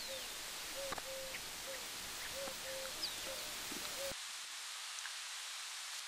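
Outdoor natural ambience: a short, low, arched call repeats every half second or so, with a few thin high calls over a steady hiss. About four seconds in all of it cuts off at once, leaving only a softer hiss.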